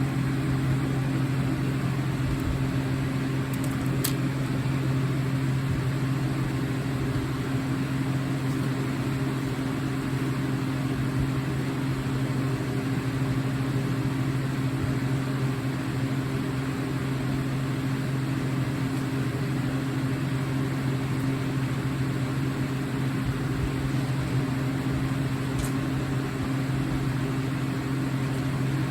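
A steady low mechanical hum that holds unchanged throughout, with a couple of faint clicks.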